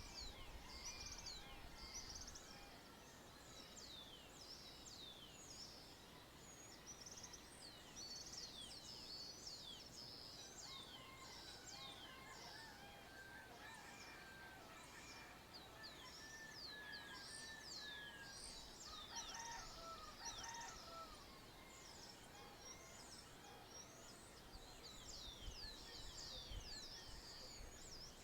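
Faint dawn chorus of many small birds: a continuous stream of quick, high, downward-sweeping chirps, with some lower warbling phrases around the middle.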